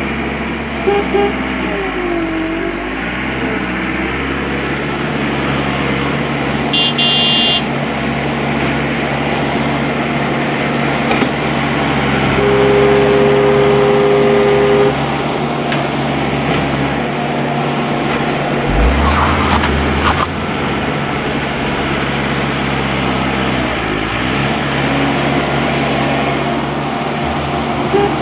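Steady vehicle engine noise, with a horn sounding two steady notes for about two seconds midway.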